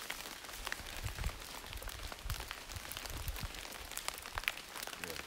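Rain falling on forest foliage and a tarp: an even hiss dotted with many small, sharp drop taps.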